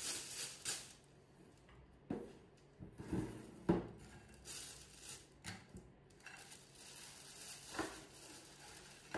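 Thin plastic bag rustling and crinkling as it is handled and held open, with dry round biscuits knocking against a glass bowl and each other as they are tipped into the bag. There are several sharp knocks between about two and four seconds in and another near the end.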